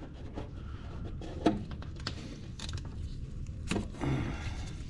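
A few sharp, separate clicks and light knocks of hand tools being handled, over a low steady hum.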